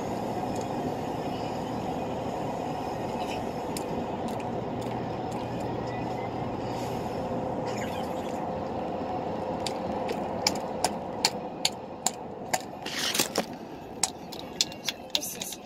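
Steady low rumble of background noise. About ten seconds in, a run of a dozen or so sharp clicks and taps begins, with one short louder rasp in the middle.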